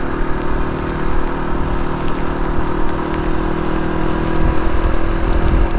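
Suzuki DR250S single-cylinder four-stroke engine running at a steady pitch while the motorcycle rides along.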